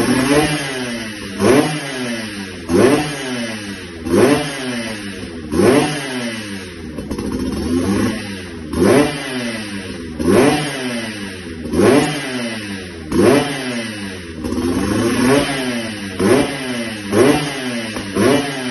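Suzuki Tornado's two-stroke single-cylinder engine revved through an aftermarket standard-racing exhaust. The throttle is blipped over and over, about once every one and a half seconds, each rev rising sharply and dropping back to idle, with quicker blips near the end.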